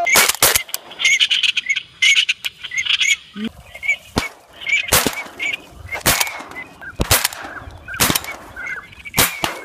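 Ducks calling: sharp, loud quacks about once a second, over a quick chatter of higher chirps.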